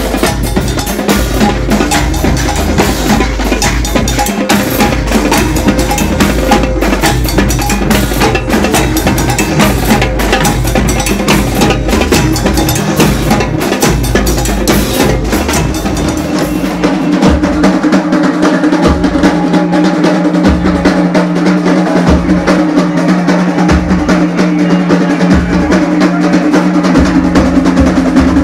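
Live percussion band, many LED-rimmed drums played together in a loud, dense rhythm. A little over halfway through, the deep bass hits thin into an even pulse under a steady sustained tone.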